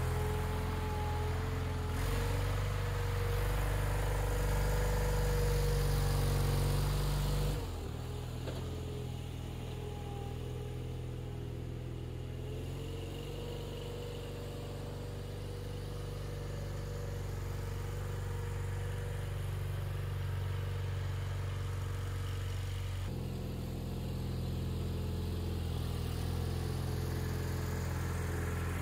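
Ingersoll garden tractor's engine running steadily as the tractor drives with its front loader. The sound drops suddenly to a quieter level about seven and a half seconds in, then comes back up about twenty-three seconds in.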